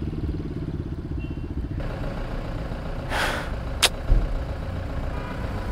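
Motorcycle engine idling with a steady low, evenly pulsed rumble. About three seconds in there is a short hiss, followed just before four seconds by a sharp click and a low thump.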